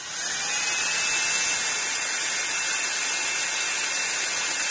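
Cordless drill starting up and running steadily as it bores a small pilot hole into wood; its motor whine rises briefly in pitch at the start, then holds steady.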